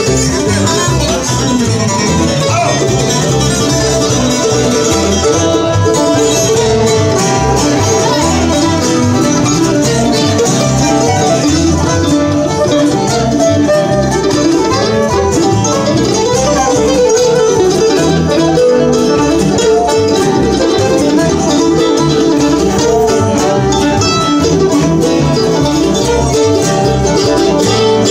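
Live acoustic bluegrass band playing an instrumental passage: strummed acoustic guitar, slide resonator guitar (dobro), fiddle and mandolin, at a steady, loud level.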